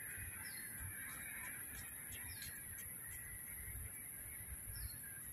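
Outdoor ambience of short, falling bird chirps every second or two over a steady high-pitched drone and a low rumble.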